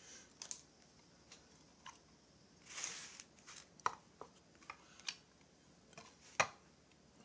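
Light clicks and knocks of a chainsaw crankcase assembly and its parts being handled and turned over, with a brief rustle about three seconds in and the sharpest knock near the end.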